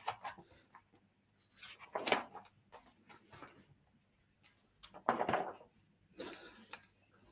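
Handling noise from rummaging by hand for whiteboard markers: four short bouts of rustling and knocking, the loudest about five seconds in.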